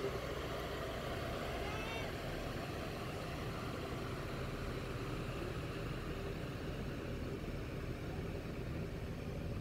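Diesel bus engine running at low speed as the coach pulls away, a steady low rumble under the busy background noise of a bus terminal.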